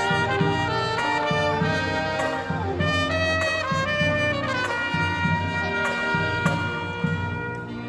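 A brass marching band plays live: trumpets and trombones carry a melody over a steady beat of about two drum strokes a second.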